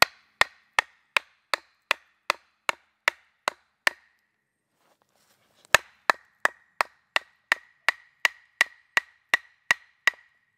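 A wooden stake being driven into the ground with a wooden baton. Sharp wood-on-wood knocks come about three a second, each with a short ring, in two runs with a pause of about two seconds in the middle.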